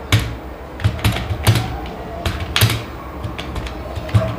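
Computer keyboard keys being pressed one at a time, about eight irregularly spaced clicks as a word is typed and corrected.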